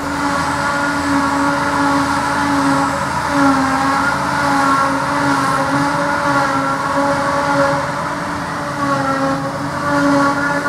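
Claas Jaguar 890 self-propelled forage harvester chopping grass, with a John Deere tractor running alongside. The engines and chopper make a steady hum whose pitch wavers slightly.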